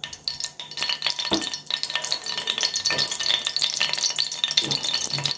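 Hot gingelly (sesame) oil sizzling in a steel kadai, a dense crackle of rapid sharp pops with a few louder ones.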